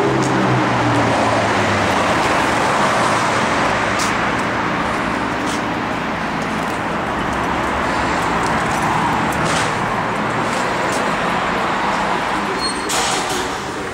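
Steady road traffic noise, with a vehicle engine's hum fading away in the first second or two and a few faint clicks.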